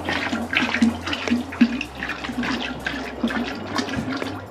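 Liquid splashing and gurgling in irregular short spurts.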